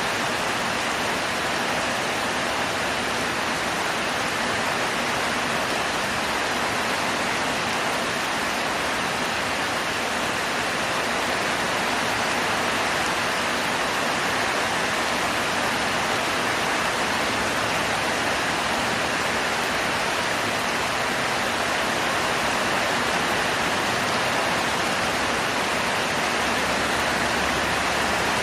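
Heavy rain falling steadily, a dense, even hiss with no single drops or other sounds standing out.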